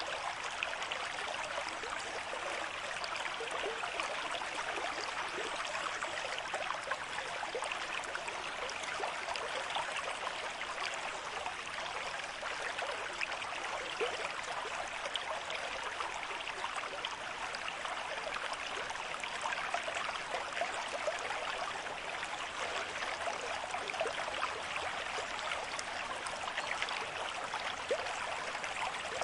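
River stream at moderate flow: steady rushing and babbling water, full of small splashes and gurgles.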